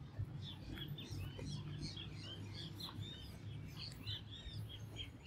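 Small birds chirping in the trees, a quick run of many short arched chirps, over a low steady background rumble.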